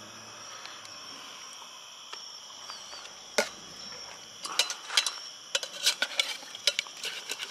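Metal tongs knocking and scraping against a small stainless steel pot as sauced squirrel pieces are turned. There is one knock a little over three seconds in, then quick, repeated clinks from about four and a half seconds on. Crickets chirp steadily in the background.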